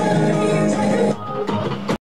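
Live rock-and-roll band music with electric guitar. It drops much quieter about a second in and cuts off abruptly just before the end.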